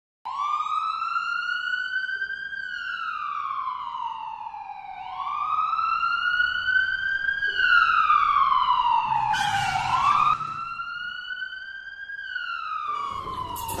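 Ambulance siren wailing. Its tone rises for about two seconds and falls for about two, three times over, with a brief burst of hissing noise about two-thirds of the way through.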